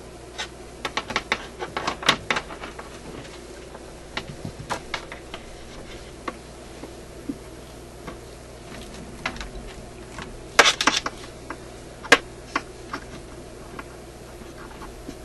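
Irregular clicks, taps and small rattles of hands working at the back of a radio cabinet, hooking up a signal generator lead. The clicks come in quick clusters about two seconds in and again around ten to twelve seconds in, over a steady low hum.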